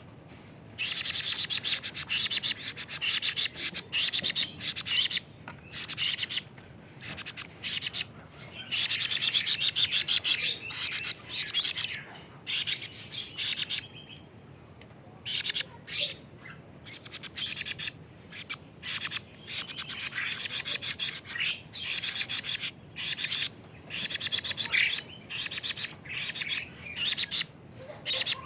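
A 41-day-old kedasih cuckoo chick calling: rapid, rasping runs of high chirps in bouts of a second or two, with short pauses between them.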